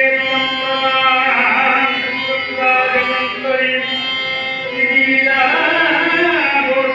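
Carnatic-style devotional singing over a steady, held drone, with the voices rising in two phrases, about a second in and again near the end.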